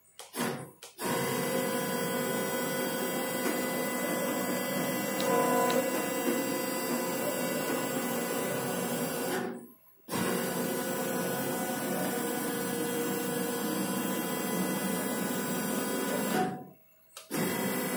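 CNC router's stepper motors driving the gantry along its ball screws as the machine is jogged: a steady mechanical whine with several fixed tones in it. It runs in two long stretches with a short stop between them, then comes back briefly near the end.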